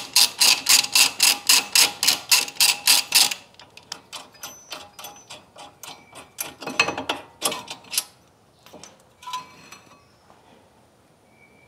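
Socket ratchet on a front brake caliper bolt, clicking at about four clicks a second as the bolt is run out. It stops about three seconds in, followed by softer scattered clicks and clanks of metal brake parts being handled.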